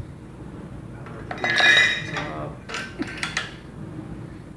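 Metal-on-metal clanking from a Saab 900 engine swinging on a hydraulic engine hoist as it is worked into the engine bay. A loud ringing clink and scrape comes about a second and a half in, then several sharper clicks around three seconds.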